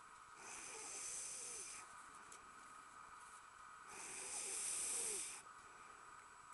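A man snoring in his sleep: two long, breathy snores about three and a half seconds apart, the second louder.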